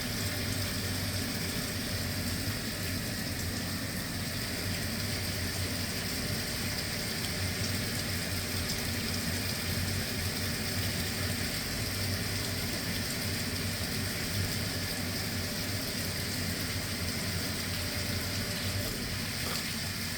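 Gas tankless water heater running steadily with hot water flowing: an even hum with a steady rush over it.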